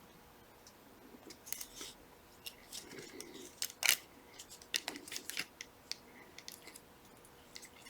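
Small hand tools clicking and scraping against the plastic and metal parts of a Shimano 105 shifter during teardown, in scattered faint ticks with a sharper click about four seconds in.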